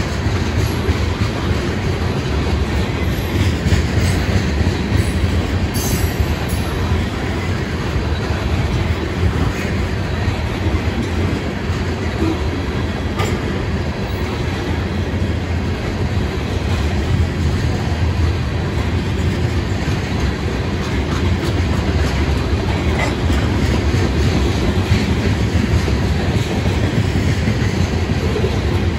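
Freight train of tank cars rolling past at a grade crossing: a steady rumble of steel wheels on the rails with scattered clicks, and a brief sharp high sound about six seconds in.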